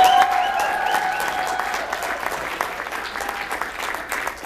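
Audience applause that starts loud and slowly thins out, with a long held whoop from someone in the crowd over the first couple of seconds.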